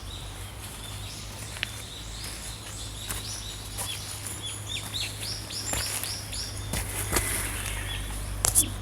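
Small birds chirping and calling, with a quick run of repeated high notes about five to six seconds in, over a steady low rumble.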